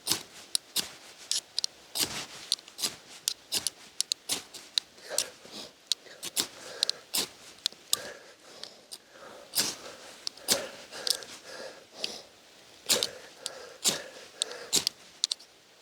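Dry wood snapping and crackling in irregular sharp cracks, a few a second and uneven in loudness.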